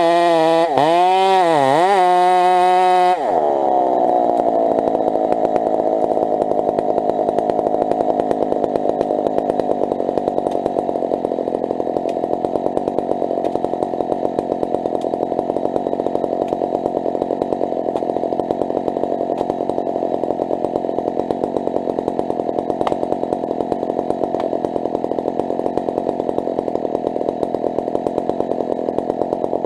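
Husqvarna 372 two-stroke chainsaw revving up and down in the cut for about three seconds, then dropping to a steady idle that holds for the rest of the time.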